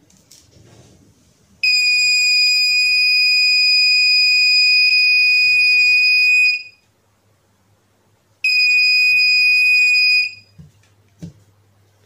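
Buzzer on a breadboard BC547 transistor fire-alarm circuit sounding a steady, high-pitched tone, switched on by the photodiode sensing a match flame held near it. It sounds for about five seconds, stops, then sounds again for about two seconds.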